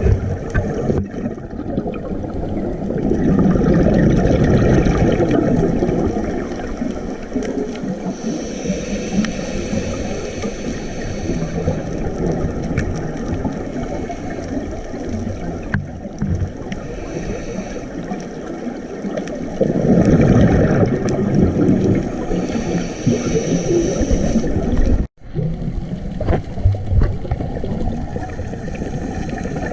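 Scuba diver breathing through a regulator underwater: slow cycles of a hissing inhale and a gurgling rush of exhaled bubbles, with a brief cut-out about 25 seconds in.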